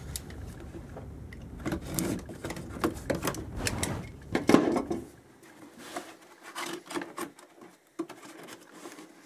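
Cardboard retail box being handled and opened by hand: irregular scrapes, taps and rubbing of cardboard, busier in the first half and thinning to a few sharp clicks after about five seconds.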